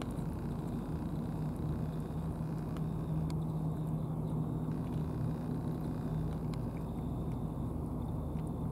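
A steady low engine drone, an idling motor with an even hum, runs throughout. A few faint clicks from a tabby cat chewing wet food out of a plastic tray sit on top of it.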